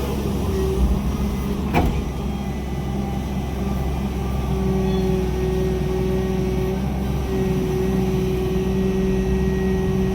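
Excavator's diesel engine running steadily with a low rumble and a steady whine that grows stronger about halfway through, with one sharp knock about two seconds in.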